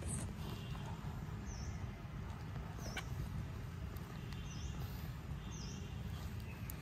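Faint, short, high chirps from a small animal, repeating about every second or so, over a steady low rumble.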